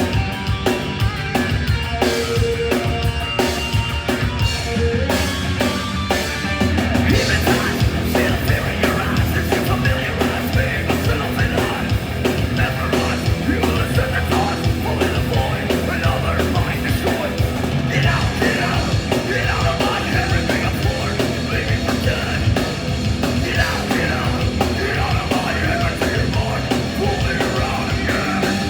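Live heavy metal band playing loudly: distorted guitars, bass and fast drums, with shouted vocals joining in the second half.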